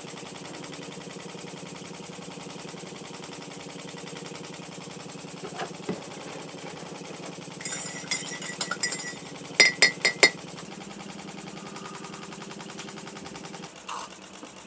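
Small single-acting model steam engine running steadily with a fast, even beat as it drives a model pump-jack. About eight seconds in there is light clinking at the ceramic mug, then four sharp ringing clinks.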